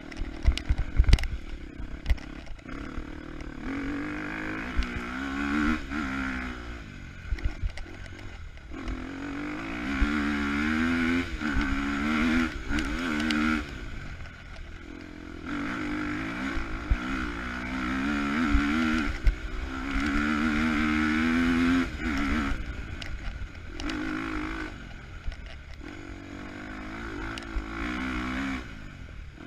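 KTM 250 EXC-F single-cylinder four-stroke dirt bike engine being ridden hard on a trail, revving up again and again with the throttle and dropping back between runs. A cluster of sharp knocks and clatter comes in the first two seconds.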